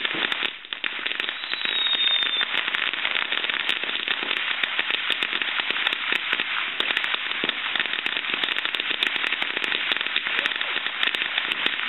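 Ground fountain firework spraying sparks: a steady, loud hiss thick with rapid crackles, dipping briefly about half a second in.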